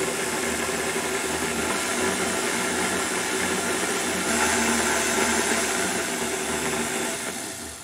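Electric tilt-head stand mixer running at speed, its wire whip beating Greek yogurt into whipped cream in a steel bowl: a steady motor whir that winds down and stops near the end.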